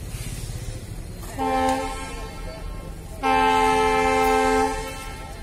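Indian Railways locomotive horn sounding two blasts: a short one about a second in, then a longer one of about a second and a half.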